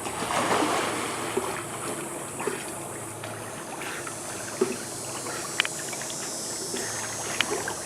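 Water sloshing and lapping as a dog swims, a steady watery wash that is strongest in the first second, with a few small splashes.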